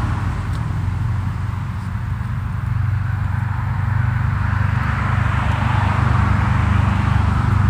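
Steady low hum of a motor vehicle's engine, with a hiss of road noise that swells in the second half.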